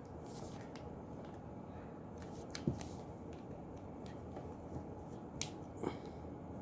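Small clicks and taps of a DC magnetic contactor's parts being handled and worked apart by hand, with a sharp knock a little past two and a half seconds in and two more sharp clicks near the end, over steady low background noise.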